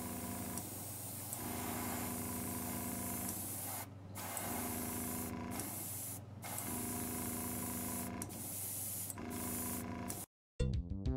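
Gravity-feed airbrush spraying paint, a steady hiss broken by several brief pauses as the trigger is eased off, over a steady low hum. The hiss cuts off suddenly near the end and electronic music begins.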